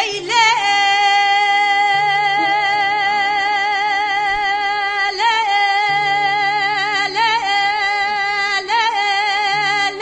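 A woman singing a long, high held note with vibrato in Kurdish folk style, breaking into a brief ornamented turn about halfway through and twice more near the end. A soft low steady tone sounds beneath the voice.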